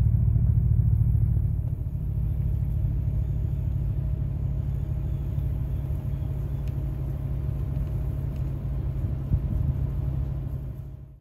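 A steady low rumble, a little louder for the first second and a half, with a faint steady hum above it; it cuts off suddenly at the end.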